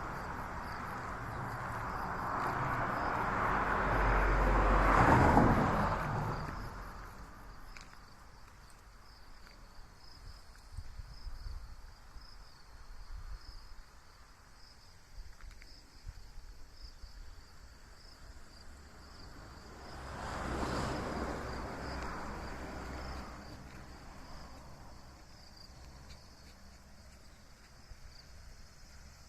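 Two vehicles passing by, the first louder and peaking about five seconds in, the second about twenty seconds in, each swelling and fading away. A steady high insect trill goes on underneath.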